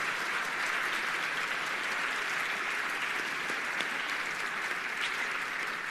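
A large seated audience applauding, a steady round of clapping.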